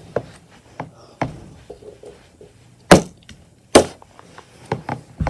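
Fidget toys being handled and put down: a string of light clicks and knocks, with two sharper, louder knocks about three and nearly four seconds in.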